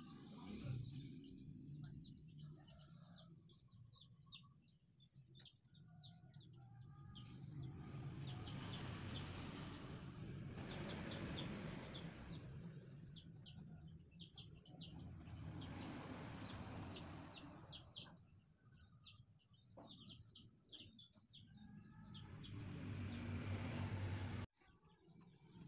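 Small birds chirping in short, repeated calls, with broad rushes of noise that swell and fade every few seconds.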